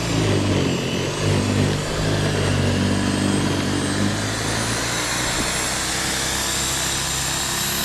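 Corded electric snow thrower running, its motor humming over the rush of snow being thrown. The pitch wavers in the first few seconds as the machine takes on snow, then settles to a steady hum.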